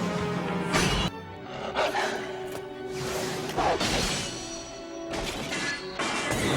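Soundtrack music from an animated fight scene, with a few sharp hits cutting through it about a second in, near two seconds and near four seconds.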